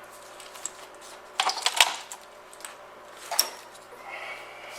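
Car wiring harness being handled: its plastic connectors and wires click and rattle in a quick cluster about a second and a half in, with one more sharp click a little later and a soft rustle near the end.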